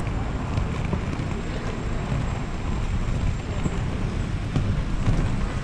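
Inline skate wheels rolling over paving, a steady low rumble mixed with wind buffeting the microphone as the skater moves.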